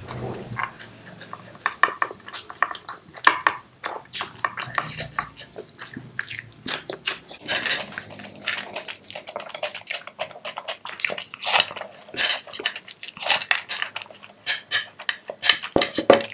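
A crisp moong papad chewed close to the microphone, a dense run of crackly crunches with wet mouth sounds. Fingers mix rice on a plate at the same time.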